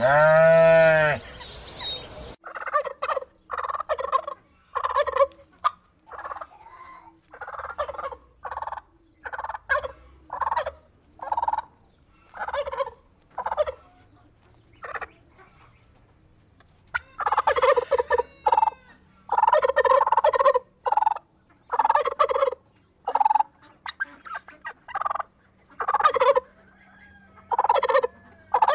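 A sheep bleats once, loudly, at the start. Then male turkeys gobble over and over in short calls, coming thicker and faster in the second half.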